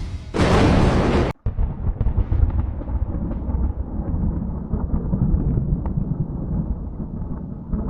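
Thunder: a loud crack that cuts off abruptly about a second in, followed by a long, low rolling rumble.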